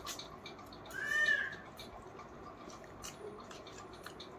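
A single short animal call, rising then falling in pitch, about a second in, over faint clicking about four times a second.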